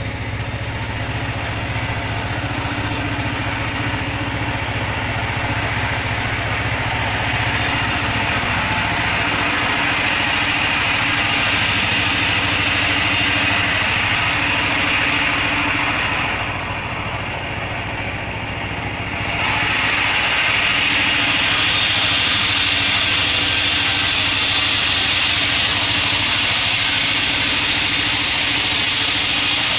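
Engine-driven homemade bandsaw sawmill running steadily, with a hiss of sawing over the engine drone. The hiss drops away for a few seconds just past halfway, then comes back.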